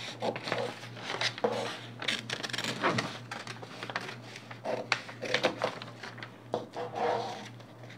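Scissors snipping through stiff kraft pattern paper, with the paper crackling and rustling as it is cut and lifted, in irregular short crackles. A low steady hum runs underneath.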